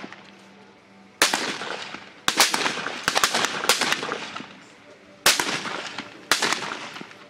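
Rifle shots from several rifles firing at a long-range range, about nine cracks at irregular spacing, each trailing off in an echo. Some come close together about two to four seconds in, and two more follow singly near the end.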